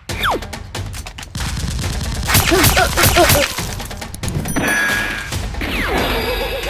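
Rapid bursts of gunfire sound effects, shot after shot in quick succession, over background music.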